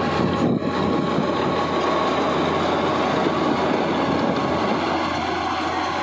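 Komatsu D50P crawler bulldozer's diesel engine running steadily under load as it pushes soil, with its steel tracks clanking.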